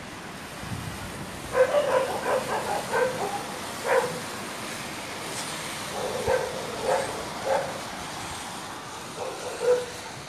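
A dog barking in three runs of short, sharp barks over a steady background noise.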